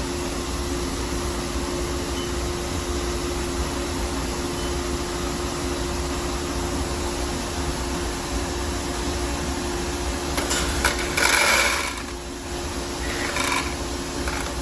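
Steady machinery hum with a constant tone, from the grain-drying equipment, and a short rattling burst about eleven seconds in as shelled corn goes into the grain moisture tester.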